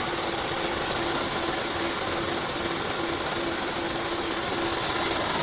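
YiYue KS3600 industrial vacuum cleaner running, sucking sawdust off a concrete floor through its hose and floor nozzle: a steady rushing noise with a faint hum beneath it.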